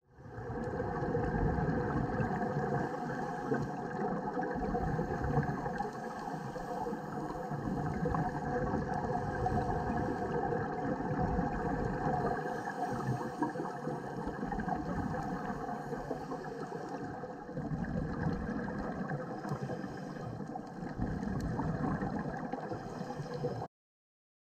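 Muffled underwater sound picked up by a camera in its housing on a dive: a steady rushing noise, with a faint steady hum through it, that cuts off suddenly near the end.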